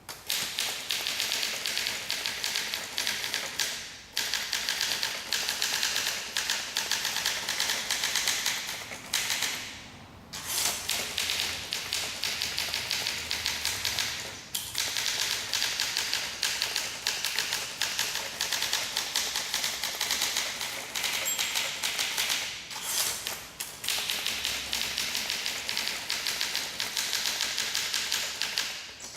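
1958 Olympia SM2 manual typewriter being typed on fast and steadily, a dense run of key strikes, with a few short breaks in the typing.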